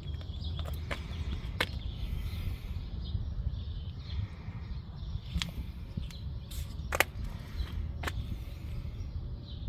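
Outdoor ambience: a steady low rumble with a few sharp clicks, the loudest about seven seconds in, and faint birds chirping in the background.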